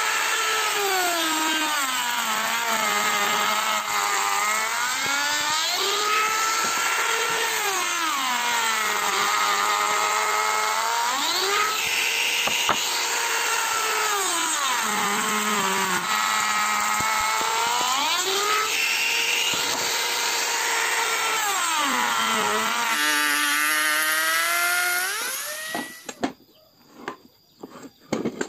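Compact electric wood router (trim router) cutting along the edge of a timber beam. Its high motor whine drops in pitch each time the bit bites into the wood under load and climbs back as the load eases, over and over. The router stops a few seconds before the end, and a few sharp wooden knocks follow.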